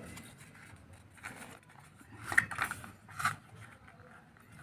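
A small cardboard box being handled and pried at by hand: a few short, faint scrapes and rubs of card, about a second in, twice around two and a half seconds, and once more past three seconds.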